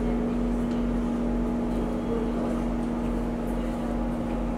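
Steady hum and low rumble inside a Singapore MRT train carriage, the pitch of the hum holding level throughout.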